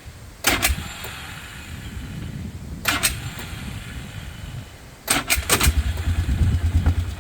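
Polaris Sportsman 500 HO ATV's single-cylinder engine being started: low cranking rumble broken by three sharp bangs, then it catches about five and a half seconds in and settles into a steady pulsing idle.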